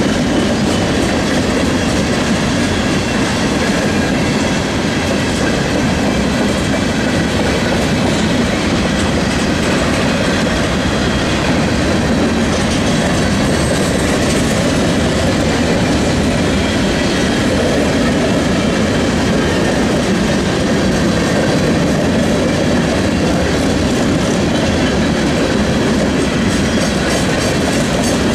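Freight train's covered hopper cars rolling past close by: a steady, loud rumble and clatter of steel wheels on the rails that holds constant throughout.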